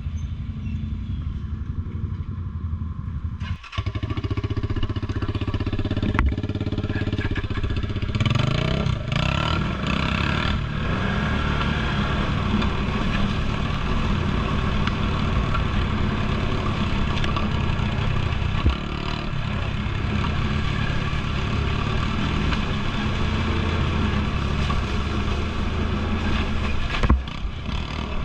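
ATV engine running steadily under way on an off-road trail. It dips briefly about four seconds in, then runs harder and evenly.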